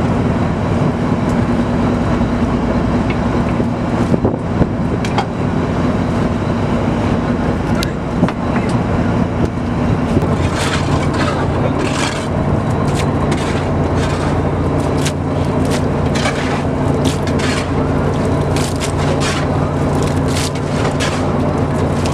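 Fishing boat's engine running steadily. From about ten seconds in, many quick scrapes and slaps as the crew scoop and throw heaped fish across the deck.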